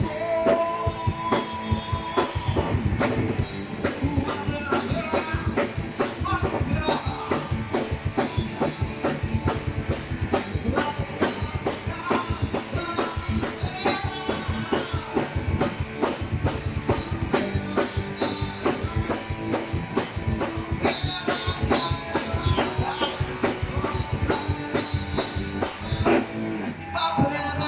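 Live rock band playing: a drum kit keeping a steady beat under electric guitars, with a male lead singer over the top.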